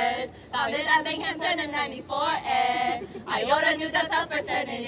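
Female voices singing, with several long held notes.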